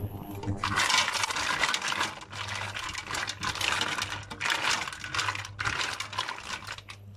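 Mussel shells clattering and scraping against one another and the sides of a stainless steel pot as they are stirred, in several surges of about a second each.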